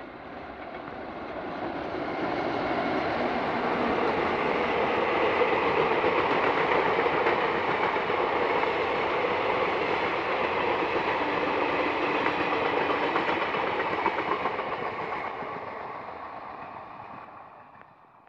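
A diesel-hauled passenger train passing close by. The locomotive's engine and its wheels on the rails grow louder over the first few seconds, then the coaches run past with a steady clatter and rumble. The sound fades away near the end.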